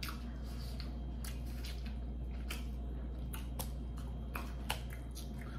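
Eating sounds from shrimp being peeled and eaten: irregular soft, wet clicks and chewing smacks over a steady low hum.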